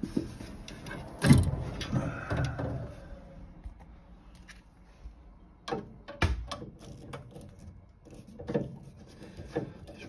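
Irregular knocks and clicks of hands and tools handling the metal fan assembly inside an open gas boiler casing, as the failed fan is being freed for removal. The loudest knock comes a little over a second in.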